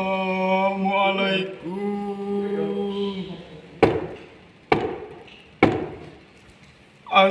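A man's singing voice holding long notes, dying away after about three and a half seconds; then three knocks on a wooden door, a little under a second apart.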